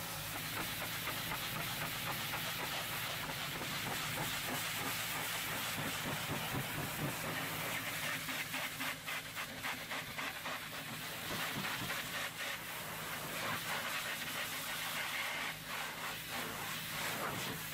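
High-pressure hot-water jet hissing steadily as it sprays a vehicle's sheet-metal side panel, over a low steady hum. About halfway through the jet moves onto the wheel and tyre and its sound turns choppier and more uneven.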